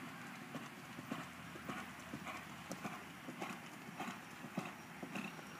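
A horse's hooves striking the dirt track in a steady rhythm of hoofbeats.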